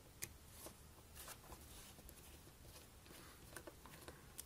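Near silence, with a few faint clicks and light scrapes of a small screwdriver working on the iPhone 4's frame and parts as the vibration motor is taken out.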